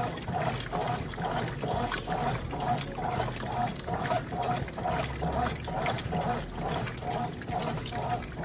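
Brastemp Clean washing machine running, with water sloshing and a regular pulse repeating a little over twice a second.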